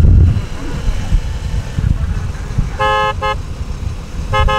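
A vehicle horn gives two short toots a little under three seconds in and two more near the end, each a two-note chord, over a low rumble of vehicle noise that is loudest at the start.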